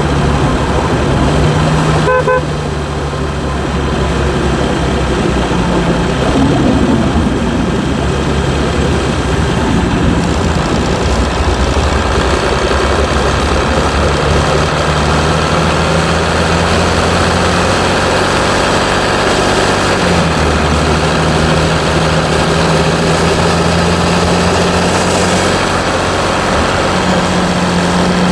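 Mercedes E320 CDI's 3.2-litre V6 diesel running on the move, its pitch stepping down and up several times and rising near the end. A short horn toot sounds about two seconds in.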